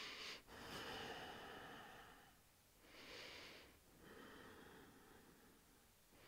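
Faint, slow breathing of a woman, a few breaths in and out with short pauses between them.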